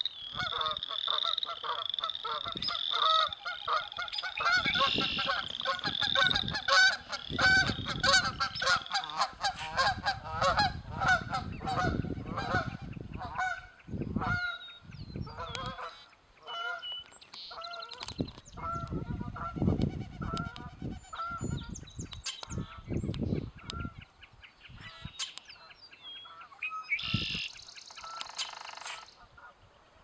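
Canada geese honking again and again over a chorus of frogs calling from a marsh pool, with low rumbling noise at times in the middle.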